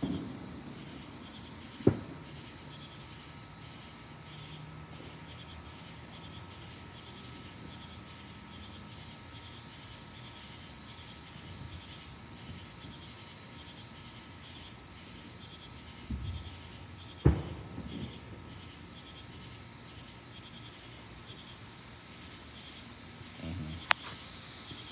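Night insects, crickets, chirping in a steady, rhythmic high-pitched chorus. Two sharp knocks cut in, one about two seconds in and one near the three-quarter mark.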